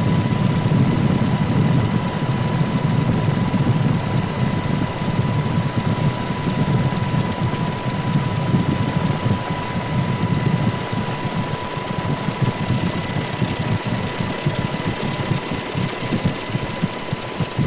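Steady low engine rumble of an aircraft, heard from on board, with a thin steady whine above it. The rumble eases off a little in the second half.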